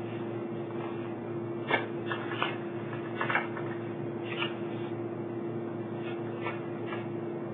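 Paper exhibit pages being handled and leafed through: a few short rustles and taps, over a steady low electrical hum.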